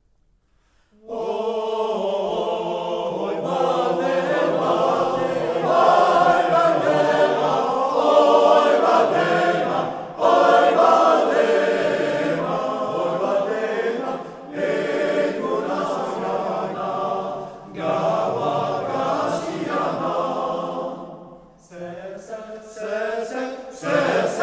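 Basque men's choir singing a cappella in several-part harmony. Singing comes in about a second in after a brief silence, with short breaks between phrases.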